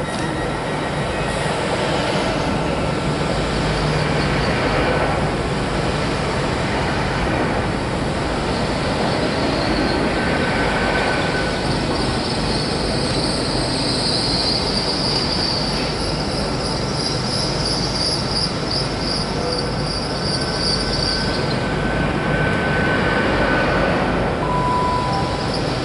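Two coupled GWR Class 802 bi-mode express trains slowing into a station platform: a steady rumble of wheels and running gear. A high-pitched squeal starts about ten seconds in and stops about eleven seconds later. A short beep sounds near the end.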